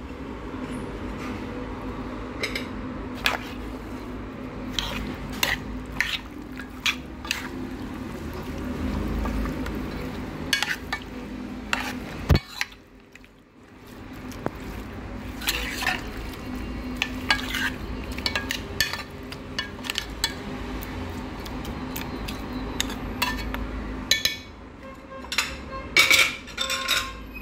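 A utensil stirring and turning raw chicken pieces with grated carrot, onion and spices in a cooking pot, with scattered clinks and knocks against the pot over a steady low hum. A sharp knock about halfway is followed by a short lull.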